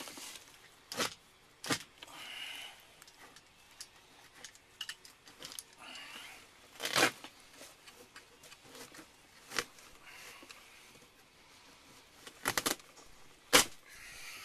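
Old carpet and floor covering being torn out of a car's floor: rips and crunching, broken by sharp knocks and clicks, with a cluster of loud knocks near the end.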